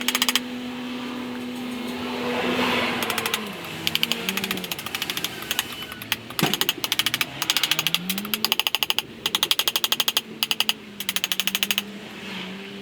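Rapid bursts of tapping on the paint bucket holding the wet plaster-and-sand furnace lining, shaking the air bubbles out of the mix. The taps come in quick runs of many strikes a second, stopping and starting, over a steady hum that slides up and down in pitch a few times.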